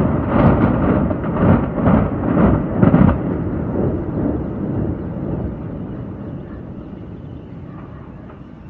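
Deep rumble of a high-rise tower collapsing in a demolition. It surges several times over the first three seconds, then dies away slowly.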